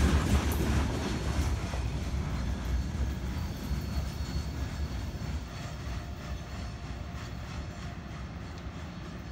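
Freight train rumbling along the rails, the sound steadily dying away as the train moves off.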